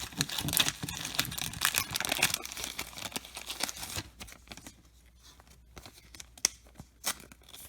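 Trading card pack's foil wrapper tearing and crinkling for about four seconds, then a few fainter rustles and clicks.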